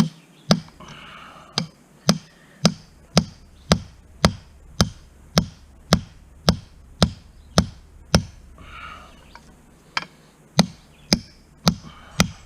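A 2-pound hammer striking steel rebar, driving a tight piece into a drilled hole in a steel pipe section. The blows come at a steady beat of about two a second, with a pause of a couple of seconds about eight seconds in before the strikes resume.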